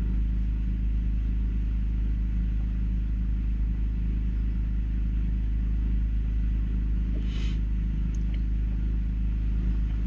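Bobcat's glow-plug diesel engine idling steadily, with a brief rustle about seven seconds in.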